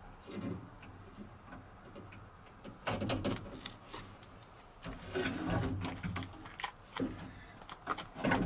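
Light handling noises: scattered small clicks and rustles as a plastic vent visor is fitted against a truck's door frame, with two short louder rough stretches about three seconds in and again from about five seconds in.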